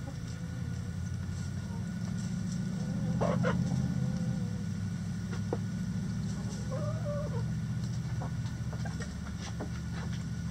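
Backyard hens clucking, with a short squawk about three seconds in and a drawn-out call that rises and falls around seven seconds, a few faint clicks between. A steady low hum runs underneath.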